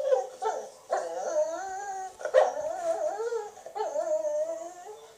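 A dog whining and howling: about four long cries whose pitch wavers up and down, with short breaks between them.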